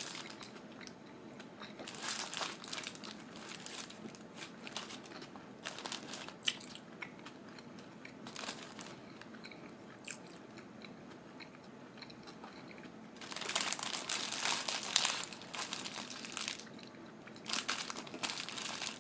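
Biting and chewing a fish sandwich close to the microphone, with crunching and intermittent wrapper crinkling. The loudest rustling burst comes about two-thirds of the way through, and another comes near the end.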